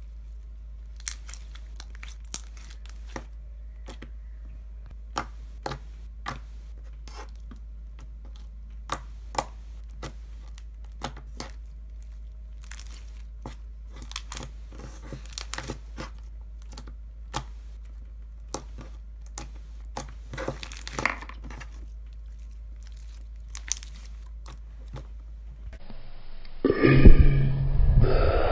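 Glossy slime with small foam beads being stretched, pressed and poked by hand, giving scattered sharp pops and clicks. Near the end a much louder, muffled sound cuts in.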